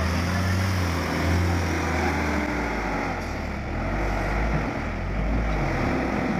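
A heavy vehicle's engine running with a steady low drone.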